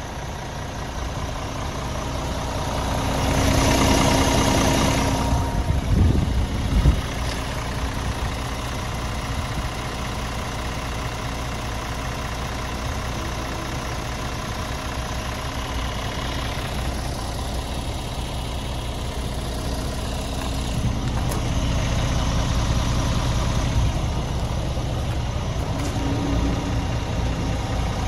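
Scania R450's 13-litre six-cylinder diesel idling steadily, with a rush of noise about three to five seconds in and a few low thumps a little after.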